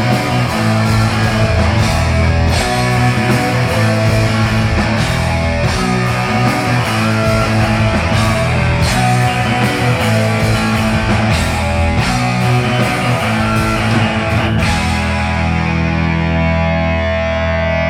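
Heavy metal band playing live: distorted electric guitars, bass and drums. About three-quarters of the way through the drums stop, and a distorted guitar chord is left ringing out.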